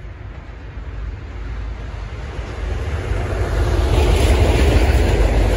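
Electric-hauled freight train of loaded flat wagons approaching and passing close by. A low rail rumble grows steadily louder, and a brighter rushing noise comes in about four seconds in as the locomotive goes by.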